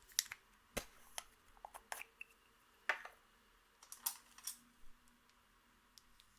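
Irregular sharp clicks and snaps, about a dozen, spaced unevenly, from clear slime and makeup being worked by hand.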